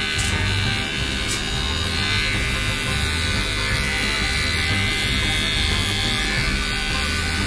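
Cordless electric pet clipper (trimmer) buzzing steadily as it clips the short hair on a toy poodle's face. It runs quietly enough not to upset the dog.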